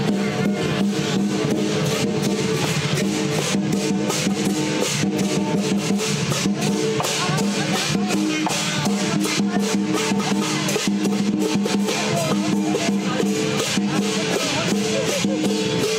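Lion dance percussion: a big drum beating without pause under ringing gongs and crashing cymbals.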